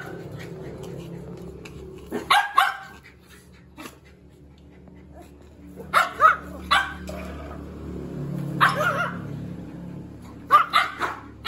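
Dogs barking during rough play: short barks in scattered bursts, about two seconds in, a few around six to seven seconds, one near nine, and a quick run near the end.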